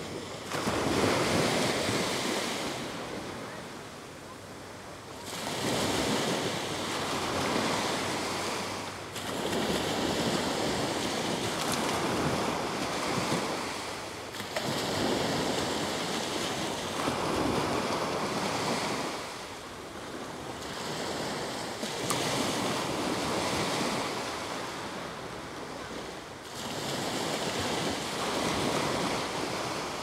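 Small Gulf of Mexico waves breaking and washing up on a sandy beach, a surge of surf every few seconds.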